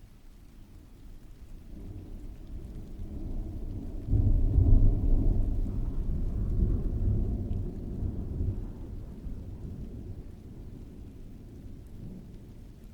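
Rolling thunder over steady heavy rain: a low rumble builds, swells sharply about four seconds in, then slowly rolls away.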